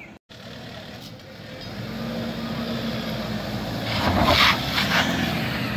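Toyota Fortuner SUV's diesel engine revving under load as the vehicle climbs over a mound of loose dirt and rubble, getting steadily louder. About four seconds in comes a short burst of scrabbling noise from the wheels as they throw up dirt.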